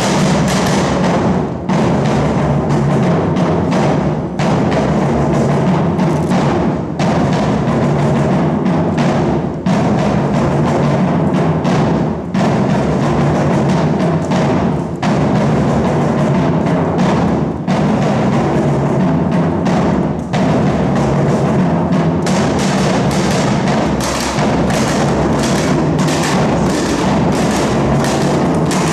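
Percussion ensemble of djembes played by hand and tall drums struck with mallets, drumming a continuous Brazilian batuque rhythm. The groove breaks briefly about every two and a half seconds, and in the last third the strokes come out more clearly separated.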